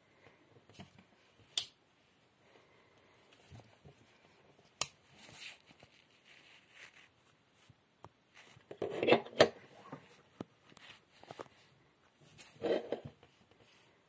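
Victorinox German army pocket knife being handled, its blade and can-opener tool snapping open and shut on the spring with several sharp metallic clicks. Softer scraping and rubbing of fingers on the knife comes between the clicks, strongest in two spells near the middle and toward the end.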